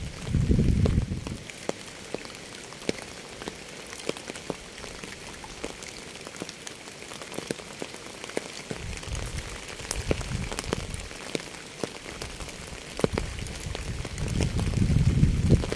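Steady rain, with individual drops ticking sharply against a hissing wash. Deep low swells come and go under it about a second in, again around nine to eleven seconds, and near the end.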